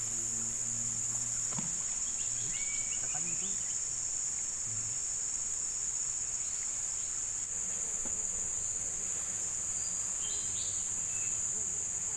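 Steady, shrill chorus of insects droning without a break, with a few faint short chirps about two seconds in and again near the end.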